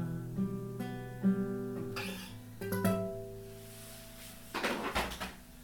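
Acoustic guitar playing the closing chords of a song, with plucked notes ringing and fading out. A brief scraping noise comes about five seconds in.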